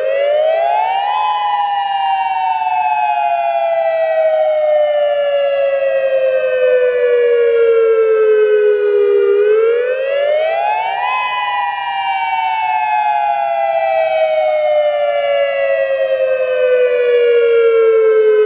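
Federal Signal Modulator II 8032B-C electronic outdoor warning siren sounding its dual-tone wail, two tones sliding together. Twice, the pitch climbs quickly for about a second, then sinks slowly over about eight seconds.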